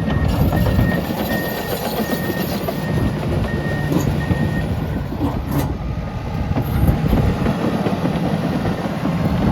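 Komatsu D65EX-18 bulldozer's diesel engine working hard with its steel tracks clattering. The reverse alarm beeps about twice a second for the first four and a half seconds, then stops. A sharp metallic knock comes about a second later.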